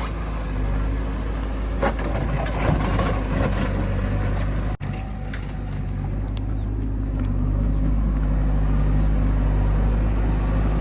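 Heavy diesel engine of a backhoe loader or farm tractor running steadily under load. The sound cuts out sharply for an instant about five seconds in.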